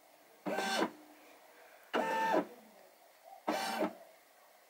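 Brother Innovis NV180D embroidery unit's motors driving the hoop carriage through a trace of the design's stitching area: three short whirring moves about a second and a half apart, each lasting about half a second and stepping in pitch.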